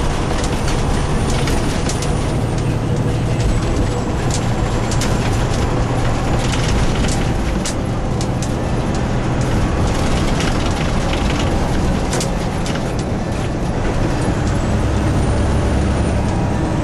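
Semi truck's diesel engine and road noise heard inside the cab at highway speed: a steady low drone that shifts in pitch a couple of times, with scattered sharp clicks.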